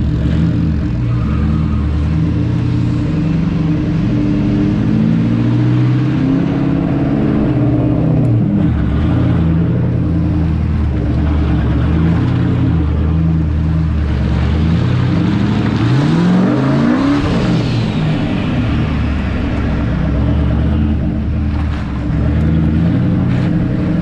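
Turbocharged Hemi V8 of a Ford F-100 pickup running under load as it crawls an off-road trail, the revs rising sharply twice, about a third and about two-thirds of the way through.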